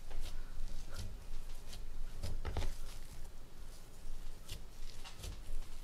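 Hands kneading pizza dough on a floured countertop: irregular soft thumps and pats as the dough is pressed and turned, with a few heavier thumps about two and a half seconds in.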